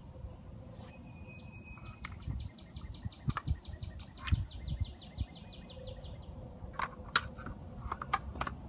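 A small bird's rapid, even trill of high notes lasting about four seconds, falling slightly in pitch as it fades. Over it come scattered knocks and clunks from handling the plastic handle of an electric tiller, the loudest about halfway through.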